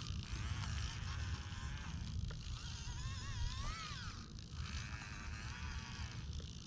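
Electric motors and hydraulic pump of radio-controlled scale construction machines running, a whine that rises and falls in pitch and stops and starts over a steady low rumble.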